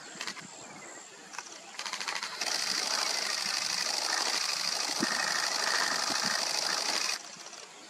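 A cicada calling: a fast pulsing starts about two seconds in and swells into a loud, steady high-pitched buzz, which cuts off suddenly near the end.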